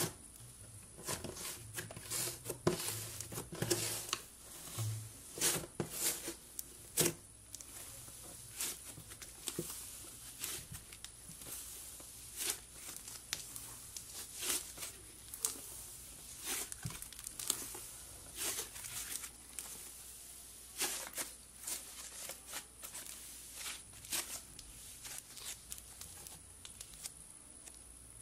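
Hands poking, kneading and stretching a thick green slime. It gives irregular sticky crackles and snaps as it pulls apart and tears, thickest in the first half.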